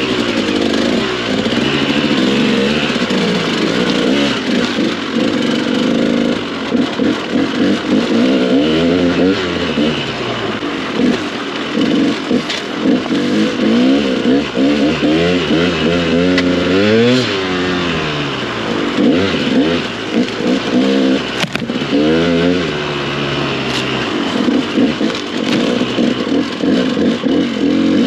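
Dirt bike engine running under load on a rocky trail, its revs rising and falling over and over as the throttle is opened and closed. A few sharp knocks from rocks striking the bike are heard in the second half.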